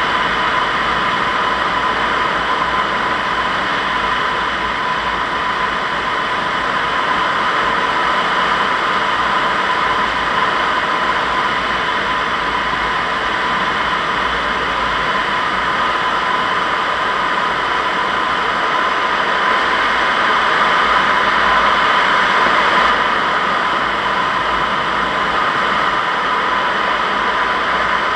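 Steady rushing airflow noise of a Zugvogel 3a glider in gliding flight, with a thin steady whistle running through it; the rush grows a little louder for a few seconds near the end.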